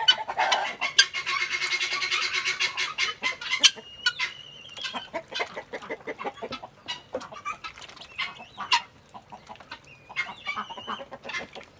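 Male Indian peafowl shaking his fanned train: the quills make a fast, even rattle for about three seconds. After that come only scattered clicks and brief rattles, with a few short chirps.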